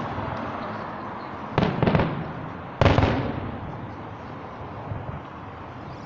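Fireworks display: aerial shells bursting with sharp bangs, two close together about one and a half seconds in and a loud one near three seconds, each followed by a rolling echo, then a fainter pop near five seconds.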